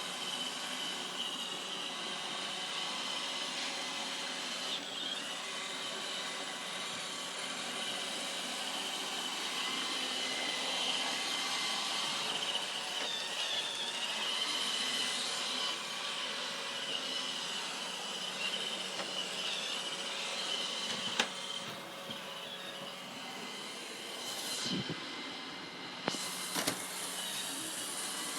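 Roomba robot vacuum running: a steady motor whine and brush noise, with a few short knocks in the last several seconds.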